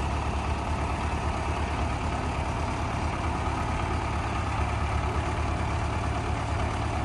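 Diesel engine of a Belarus front-loader tractor running steadily with a low, even drone while the loader sets a round hay bale into a pickup bed.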